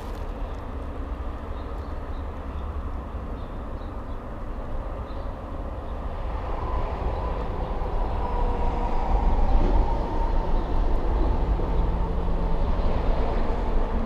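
Low, steady rumble of a passing vehicle that grows louder through the second half, with faint humming tones over it.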